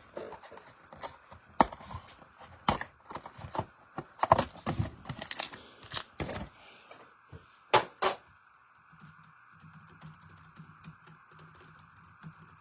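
Trading card packaging being opened and handled: irregular crinkling, tearing and clicking for about eight seconds, then it stops.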